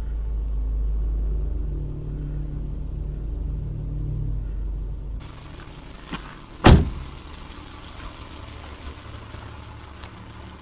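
Car's low engine and road rumble heard from inside the cabin, which drops away about five seconds in; a click follows, then one loud car-door thump, after which only a faint outdoor hiss remains.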